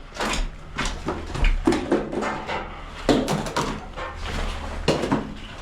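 Airsoft gunfire and gear clatter in a skirmish: an irregular string of sharp cracks and clacks, some in quick pairs, over a low rumble.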